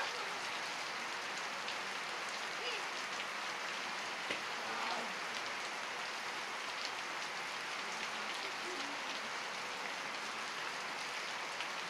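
Heavy rain pouring down steadily, an even hiss without a break.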